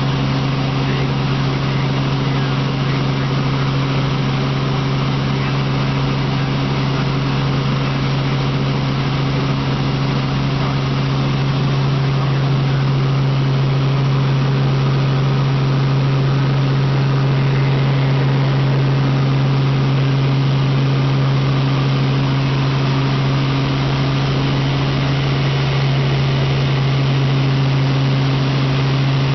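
Helicopter in flight heard from inside the cabin: a steady drone of rotor, engine and rushing air, with a strong, constant low hum.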